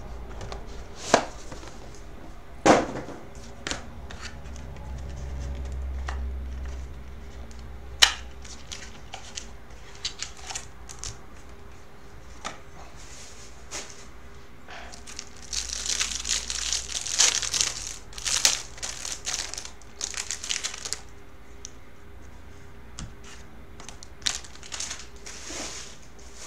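Trading-card box and its packaging being handled on a desk: a few sharp knocks in the first several seconds, then a spell of crinkling and rustling lasting about five seconds past the middle, with a few lighter clicks near the end.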